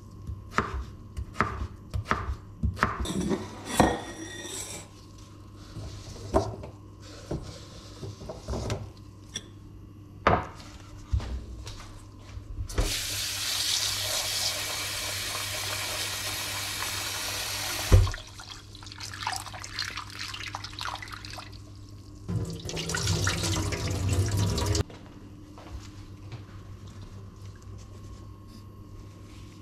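Chef's knife cutting potato on a bamboo cutting board: a series of sharp knocks. Then a kitchen tap runs onto cut potatoes in a stainless-steel bowl to rinse them, about five seconds of steady rushing that stops with a knock. A second, shorter rush of water follows a few seconds later.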